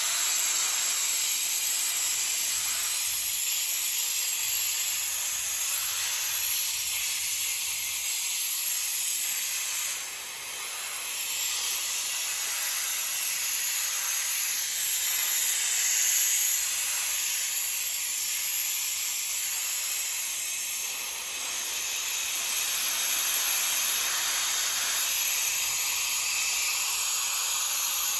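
Compressed air hissing out of the open drain valve at the bottom of a Chiaperini MC 7.6/24L compressor's 24-litre tank, blowing out the dirty condensed water that has collected inside: routine draining of moisture from the air tank. A steady hiss that dips briefly twice.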